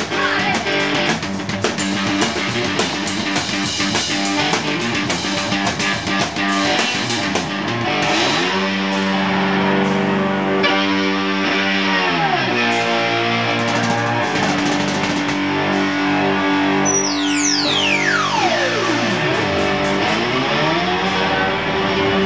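Live rock played on distorted electric guitar and drums. Drums drive the first part; later, held guitar notes swoop down and back up in pitch, and near the end a long pitch dive falls away and climbs back.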